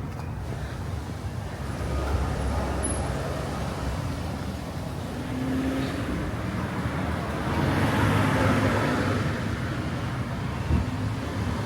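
City street traffic going by, with one vehicle passing louder about eight seconds in.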